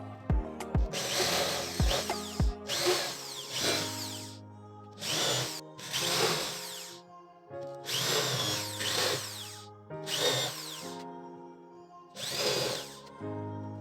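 A power tool running in repeated short bursts of about a second each, its pitch sliding up and down as the motor spins up and slows, over background music.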